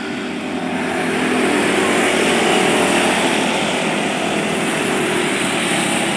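A pack of microd race cars running their small engines at racing speed, a dense mix of engine notes that grows louder over the first two seconds as the cars come around the bend and close in, then holds.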